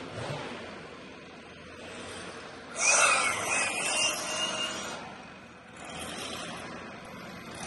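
A handheld blower run in one short blast of about two seconds, its fan whining with a wavering pitch as it blows off the top of a log, starting about three seconds in.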